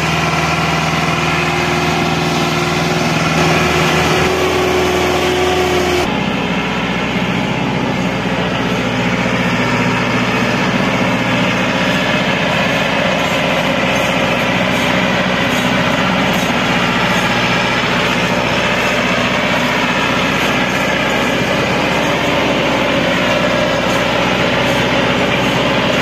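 Massey Ferguson 385 tractor's diesel engine running hard under heavy load, hauling a trailer piled with sugarcane through deep sand. About six seconds in the sound changes suddenly to a rougher, denser engine noise.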